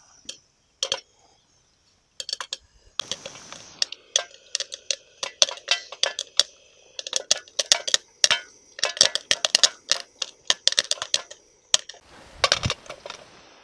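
Popcorn popping in a blackened metal pot on a small gas camping stove: a rapid, irregular run of sharp ticks and clinks of kernels against the metal, starting about two seconds in, over a faint steady hiss.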